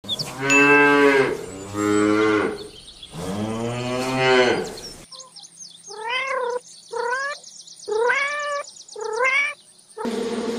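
A cow mooing three times in long, low calls, then a cat meowing four times in short calls that rise and fall in pitch. About ten seconds in it cuts abruptly to a steady buzz.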